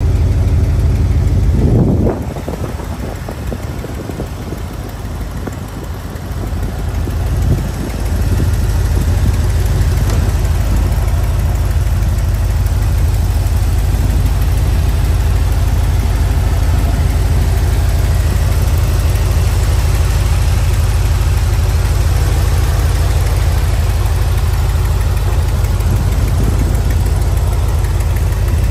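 1987 Ford F-250's gasoline V8 idling steadily, heard with the hood open. The sound drops for a few seconds after about two seconds in, then comes back and holds steady.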